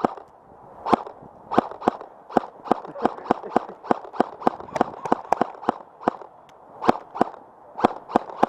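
Airsoft guns firing single shots in a rapid, irregular series of sharp pops, a few each second, during an exchange of fire at close range.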